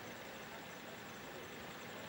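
Dassault Falcon 7X taxiing at a distance, its three turbofan engines giving a steady, faint hiss and hum.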